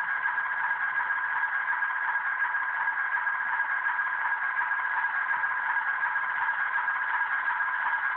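Diesel idle sound effect from an HO-scale model switcher locomotive's sound system: a steady engine idle, thin and without any low rumble, holding two steady tones.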